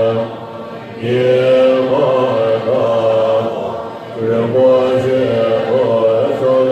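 Large assembly of Tibetan Buddhist monks chanting prayers in unison, low sustained voices holding long notes, with two short breaks for breath, about half a second in and again near four seconds.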